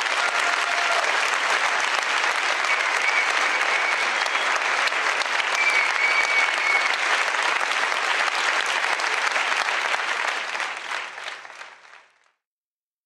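Audience applauding, dense and steady, then fading out to silence near the end.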